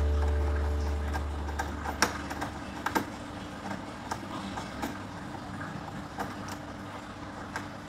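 Screwdriver tightening a cable's terminal screw on a LiFePO4 battery: scattered light metal clicks and scrapes, a few sharper ones about two and three seconds in.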